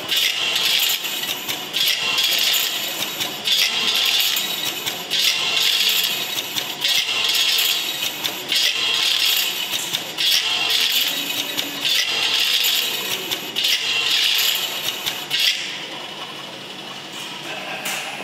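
An eight-lane tablet counting machine dropping counted tablets through its funnel into plastic bottles: bursts of rattling about a second long, repeating every second and a half or so, growing fainter near the end.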